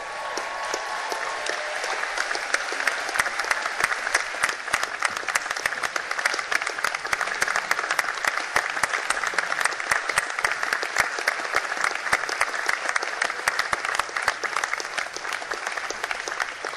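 A large crowd applauding, many hands clapping. It swells over the first couple of seconds, then holds steady.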